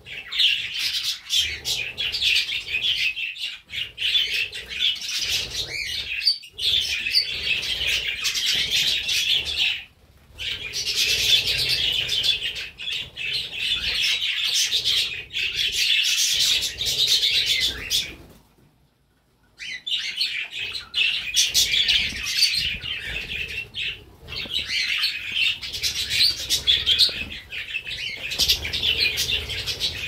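A flock of budgerigars chattering and warbling continuously in a dense, busy chorus, with a brief break of about a second roughly two-thirds of the way through.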